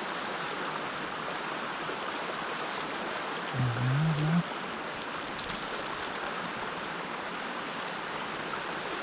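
A river rushing steadily over a riffle. A brief low hum from a man's voice, rising in pitch, comes about three and a half seconds in, and a few faint clicks follow around five seconds in.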